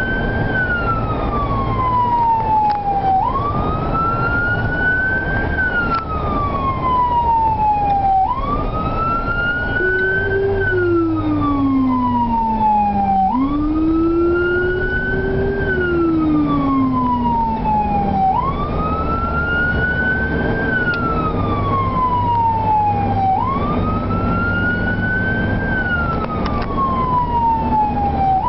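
Emergency vehicle siren on a slow wail, heard from inside the responding vehicle: each cycle climbs and then falls back, repeating about every five seconds, over the vehicle's engine and road noise. In the middle a second, much lower siren tone falls, rises and falls again.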